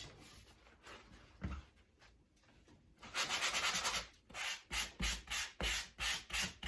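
Hand sanding of dried sheetrock mud (joint compound) on a drywall patch: after a quiet start, a second of steady scraping, then quick back-and-forth strokes about two to three times a second.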